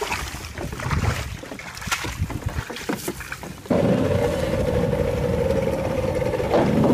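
Fishing boat's engine running steadily with a held, even drone, cutting in suddenly a little before four seconds in. Before that, irregular rustling with scattered knocks.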